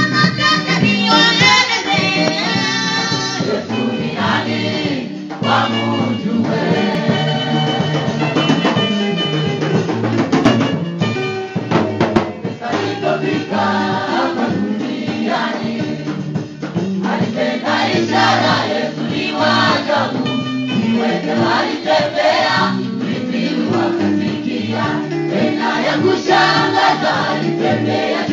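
Gospel choir singing a Swahili church song over guitar, keyboard and drums, at a steady, loud level throughout.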